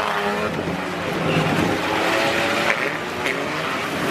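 Stock car engines revving and running hard around the track, their pitch rising and falling, with a couple of short knocks near the end.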